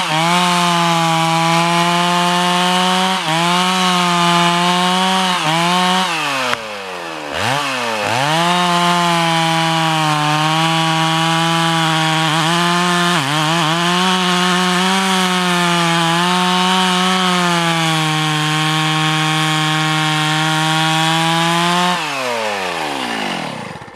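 Stihl MS660 two-stroke chainsaw held at full throttle while cutting into the base of a large chestnut oak. Its pitch dips briefly several times, sags to a low speed for about a second around a third of the way in, then climbs back. Near the end the engine winds down as the throttle is released.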